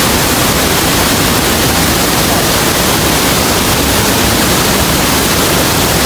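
Rhine Falls waterfall pouring: a loud, steady, unbroken rush of white water.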